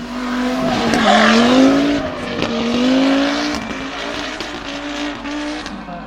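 Racing car engine revving hard, its note rising and falling, loudest about a second in with a second surge near three seconds, then easing.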